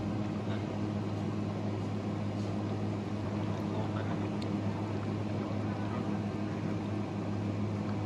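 A steady low hum from machinery, unchanging throughout, with a few faint light clinks now and then.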